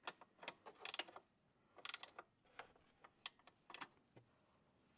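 Faint ratchet wrench clicking in short, irregular runs of strokes as a lock nut is tightened onto a bolt.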